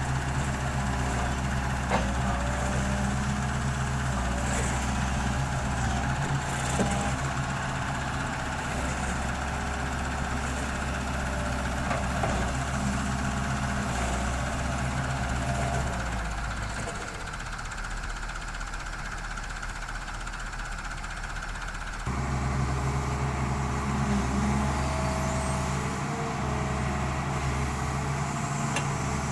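Diesel engine of a Doosan 140 excavator running steadily under work, with a few sharp knocks. The engine note drops and thins for about six seconds past the middle, then comes back abruptly.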